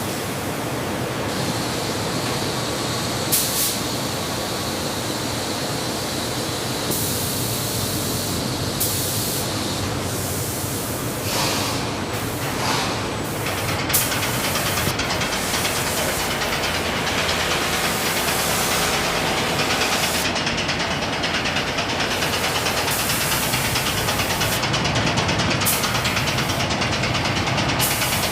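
Steady machinery noise with a strong hiss, its character changing abruptly every few seconds and getting a little louder about halfway through.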